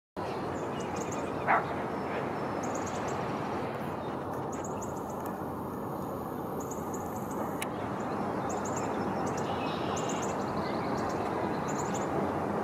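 Steady outdoor background noise with faint, high small-bird chirps in short clusters every second or two. One brief louder sound comes about a second and a half in.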